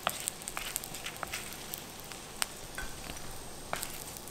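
Whole spices and dried red chillies roasting in a stainless steel kadai, a soft sizzle stirred with a wooden spoon, with scattered sharp ticks and crackles.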